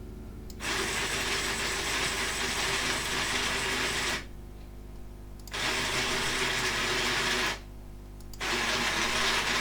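The robot arm's geared motor runs in three spells: a long one of about three and a half seconds, then two of about two seconds each, with short pauses between. It is a dense mechanical whine with a steady tone in it. The owner takes this behaviour as showing the fault in his homemade I2C motor driver, a beginner's mistake with microcontroller interrupts.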